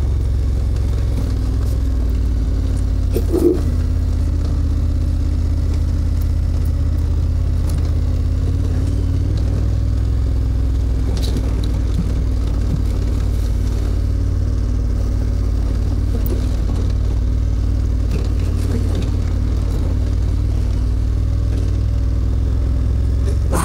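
KTM 1290 Super Adventure's V-twin engine running steadily on a gravel track, under a constant low rumble. A few brief knocks and clicks come through, one a few seconds in and two more around the middle.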